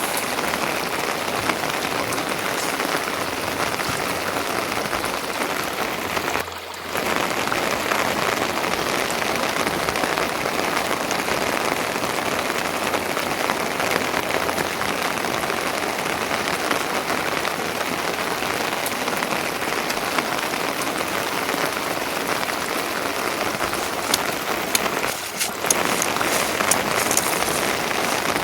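Steady rain falling, an even patter of drops that briefly drops out twice.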